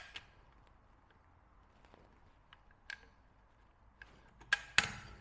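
Metal parts of a DSS PZD556 light machine gun's bolt group being handled: a few light clicks, then two sharp metallic clicks near the end.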